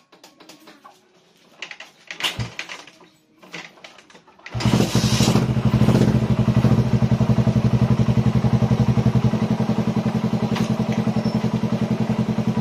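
A few clicks and knocks, then about four and a half seconds in the Suzuki Raider 150 motorcycle engine is started and settles straight into a steady idle with an even, fast pulsing beat.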